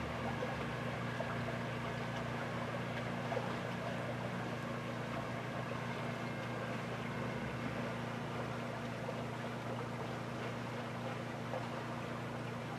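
Steady outdoor background: an even hiss with a low, unchanging hum underneath and no distinct events.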